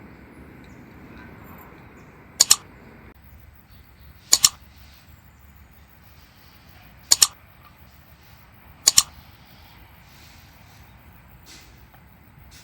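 Four sharp double clicks or knocks, each a quick pair, spaced about two to three seconds apart, with a fainter one near the end, over a quiet steady background.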